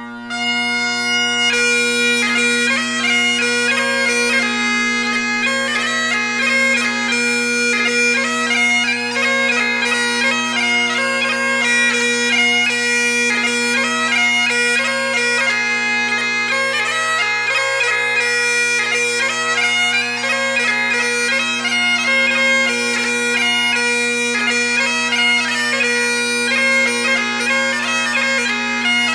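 Highland bagpipes playing a tune with fast-changing notes over steady low drones.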